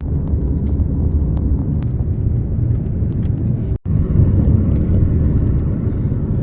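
Wind buffeting a phone's microphone: a loud, steady low rumble that drops out for an instant just before four seconds in.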